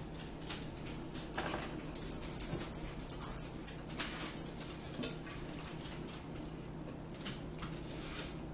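People eating at a table: chewing and mouth sounds with scattered light clicks of fork and fingers on plates, denser in the first half, over a low steady hum.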